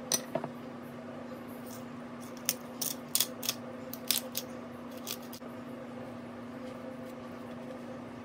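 Irregular sharp clicks and taps of hands seasoning salmon fillets in a metal roasting pan, bunched in the first five seconds, over a steady low electrical hum.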